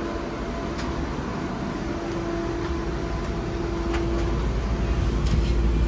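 A vehicle running: a steady rumble with a constant hum, the low rumble growing louder toward the end.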